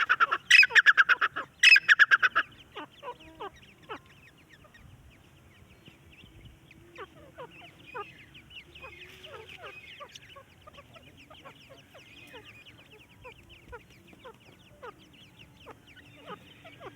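Male partridge calling: two loud bursts of rapid repeated notes in the first two and a half seconds. Fainter, scattered call notes follow.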